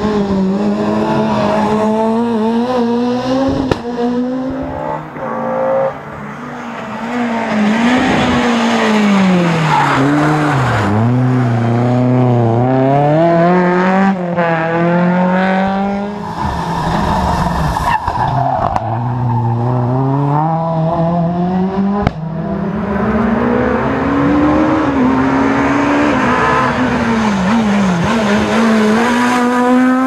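Rally cars at racing speed, one after another, each engine revving high up through the gears and dropping in pitch as it brakes for the corners before accelerating away.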